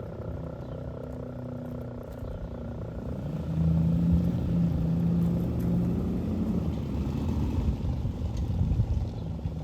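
ACA P-15 fire siren late in its wind-down, its rotor giving a low growl. The pitch sits lower after a few seconds, and the sound swells about a third of the way in.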